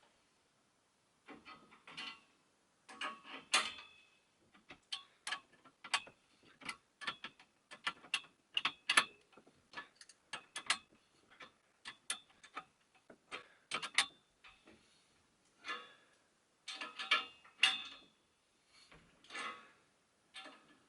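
Homemade headset press being tightened: a spanner working a nut down a threaded bar gives irregular sharp metallic clicks and ticks in clusters, with short pauses between, as the headset cup is pressed into the head tube.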